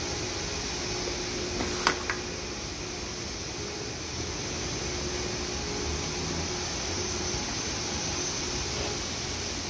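Steady mechanical hum and air noise, with a short sharp clatter about two seconds in.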